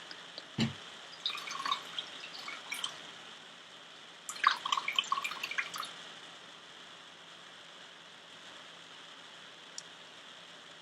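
Water dripping and trickling into a basin in two short bursts, the first about a second in and the second around four seconds in, as from a wet cloth being wrung out, with a soft low thump just before the first burst.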